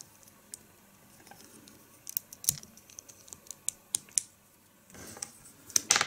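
Plastic Lego bricks clicking and tapping as fingers handle them and press them together: scattered light clicks, several in quick succession around two seconds in, and a cluster near the end.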